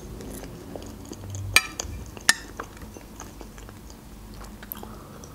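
Quiet chewing of a meringue roll. About a second and a half in and again just after two seconds come two sharp clinks of a metal fork being set down and a small glass tea cup being handled.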